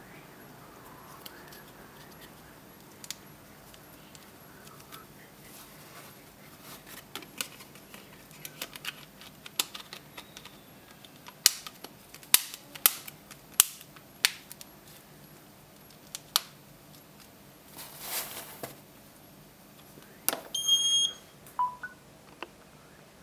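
Plastic back cover of a Samsung Galaxy S4 snapped onto the phone: a run of sharp clicks as the cover's clips are pressed home. Near the end the phone is set down on a Qi charging pad with a click, followed by a short electronic beep as wireless charging starts.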